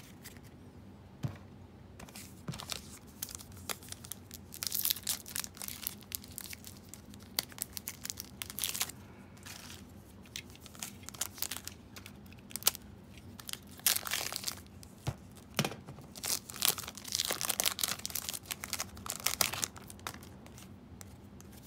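Foil wrappers of NBA Hoops trading card packs being handled, torn open and crinkled. This comes as several bursts of crackling: the longest about five seconds in and again in the last third, with quieter handling between.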